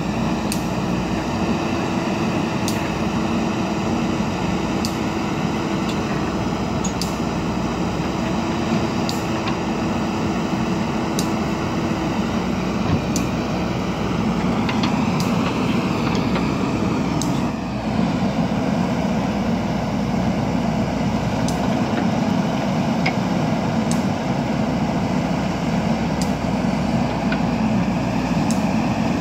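JCB backhoe loader's diesel engine running steadily under hydraulic load as the backhoe arm digs and lifts soil. A little past halfway the engine note shifts and dips briefly, then steadies again.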